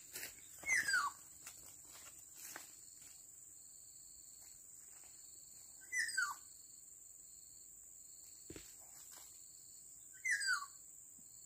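Black-naped oriole calls: three harsh calls, each sliding downward in pitch, a few seconds apart, over a steady high-pitched insect drone.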